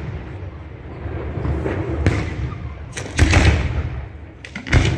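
Aerial firework shells bursting overhead, with a rolling echo from one burst. A quick cluster of sharp bangs comes about three seconds in, and another bang comes near the end.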